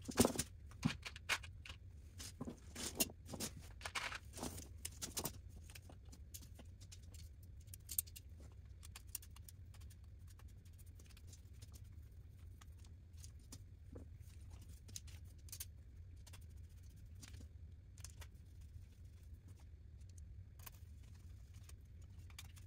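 Small clicks, taps and scrapes of metal robot-kit parts and screws being handled and screwed together with a hex screwdriver, busy in the first five seconds and then sparse, over a low steady hum.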